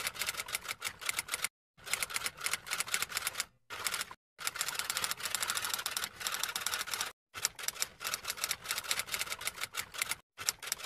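Typewriter sound effect: rapid clacking of typewriter keys in several runs, each one to three seconds long, broken by short gaps of complete silence.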